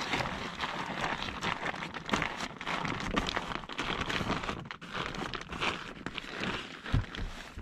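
Close rustling and crinkling from movement and handling of fabric or gear, with a dull knock about seven seconds in.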